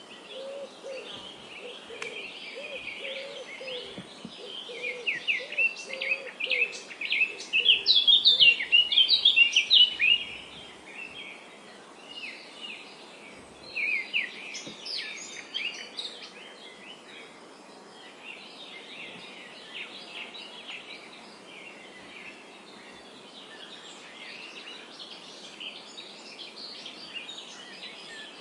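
Several birds chirping and singing together over a steady background hiss, busiest and loudest about five to ten seconds in and again around fourteen seconds. A lower repeated call sounds through the first several seconds.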